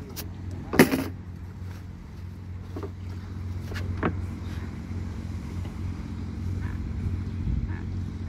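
Small boat engine idling steadily with a low hum. A few sharp knocks sound over it, the loudest about a second in and two lighter ones around three and four seconds in.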